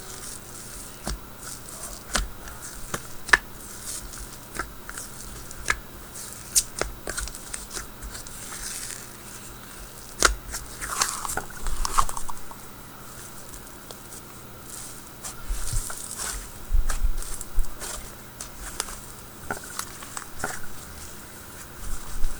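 Icy-textured slime being squeezed and stretched by hand, giving off many small sharp crackles and pops, with louder bursts of crackling about halfway through and again later.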